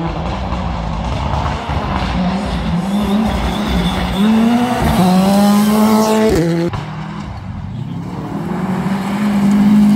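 Rally car engine revving hard as it accelerates along a gravel forest stage, its pitch rising through the gears. It cuts off sharply about six and a half seconds in as the driver lifts, then builds again and holds loud near the end.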